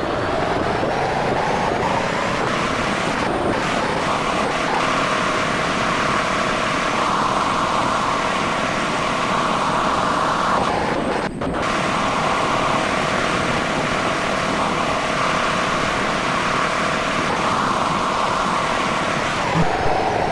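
An engine running steadily at a constant pitch, a high whine over a dense rushing noise, with a brief dip about eleven seconds in.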